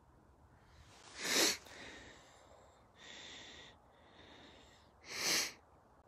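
Two short, sharp breaths close to the phone's microphone, about four seconds apart, each lasting about half a second, with faint hiss between.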